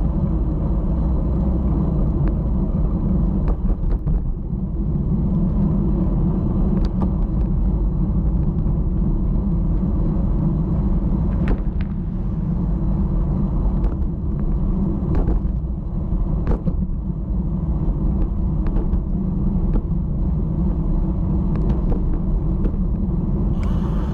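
Steady low rumble of travel along an asphalt road, heard from a camera mounted on the moving vehicle, with scattered sharp ticks and knocks from bumps in the pavement or the mount.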